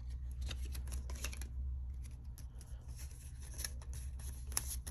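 Foil booster-pack wrapper and trading cards being handled: scattered small crinkles, clicks and rustles of uneven strength, over a steady low hum.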